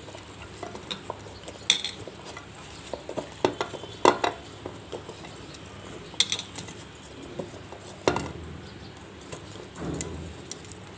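Peeled garlic cloves and papery skins being shaken out of a silicone garlic-peeler pod onto a plastic colander: scattered light knocks and clicks, the sharpest about two, four, six and eight seconds in.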